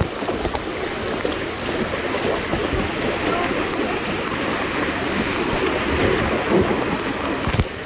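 Steady rushing of a fast, shallow river running over rocks in rapids. A single short knock sounds near the end.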